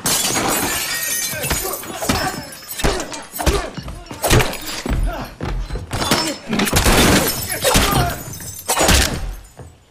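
Movie fight sound effects: glass shattering and breaking, a long crash at the start, then a string of sharp hits and thuds.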